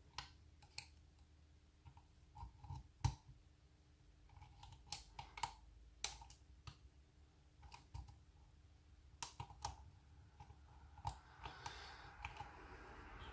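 Faint, irregular metallic clicks of a hook pick and tension wrench working the pins inside a night latch cylinder, the pins not setting. A soft hiss of handling noise builds near the end.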